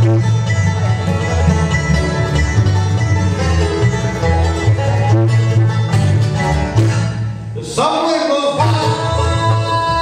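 Live bluegrass band playing: banjo, mandolin, acoustic guitar and upright bass. Near the end the bass drops out for about a second, and then long held notes come in.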